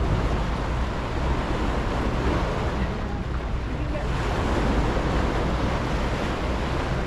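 Passenger ferry under way: a steady low engine drone beneath the wash of water along the hull, with wind on the microphone.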